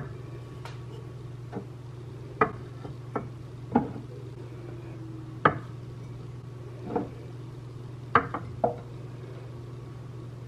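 China teacups set down one by one on a wooden riser: about ten light clinks and knocks at uneven intervals, a few in quick succession near the end, over a steady low hum.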